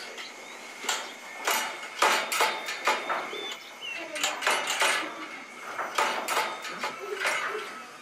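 Repeated sharp metallic clanks and rattles from a steel-barred cage door and its padlocked latch, coming irregularly from about a second in.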